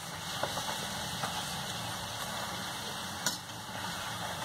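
Puffed poori deep-frying in hot oil in a kadhai, the oil sizzling steadily, with a light click about three seconds in.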